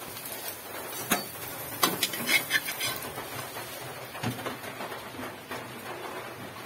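Oil sizzling as an egg-and-fish patty fries in a wok, with a few sharp knocks and clinks of a metal utensil against the cookware, the loudest about two seconds in.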